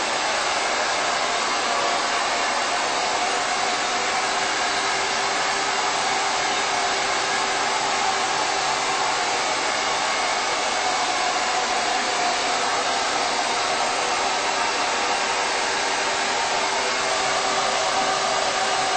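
Handheld hair dryer running steadily on a high setting, a constant rush of blown air with a faint steady motor whine.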